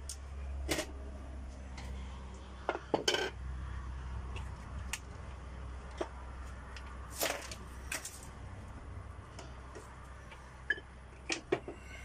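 Metal hand tools, pliers and a screwdriver, clinking and knocking as they are handled and set down on a wooden workbench: a scattering of sharp clicks, a few in quick pairs, over a low steady hum.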